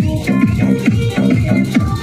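Electronic dance music with a fast, heavy bass beat.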